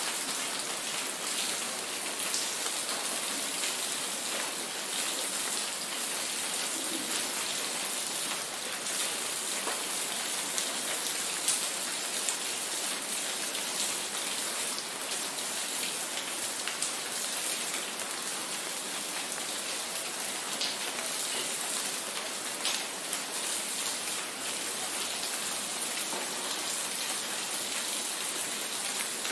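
Steady rain falling: an even, unbroken hiss, brightest in the high end, with scattered sharper drop ticks.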